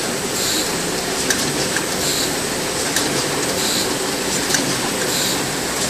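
ZB302 packing machine running: a steady mechanical whir, with a short hiss and a sharp click repeating about every one and a half seconds as it cycles.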